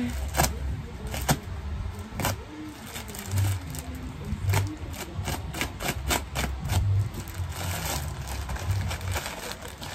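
Irregular clicks and scrapes of a shipping package being handled and opened, with low pulses sounding underneath.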